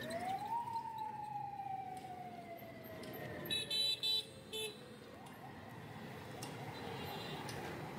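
Street traffic: a siren-like whine that climbs quickly at the start and then sinks slowly over several seconds, with a few loud short horn beeps about halfway through.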